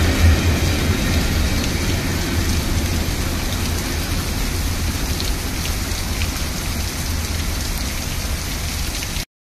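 Heavy rain pouring down steadily, with a low rumble underneath; the sound cuts off suddenly near the end.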